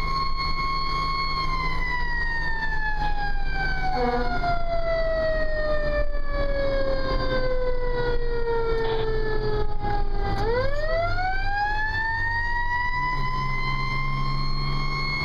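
Fire engine siren sounding while the 1985 Pierce Arrow engine runs underneath. The siren holds a high note, falls slowly in pitch for about nine seconds, then climbs quickly back up and holds again.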